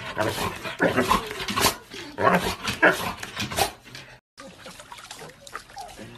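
A golden retriever making a string of short, loud barks and grumbles. About four seconds in it gives way to faint water sloshing in a tub.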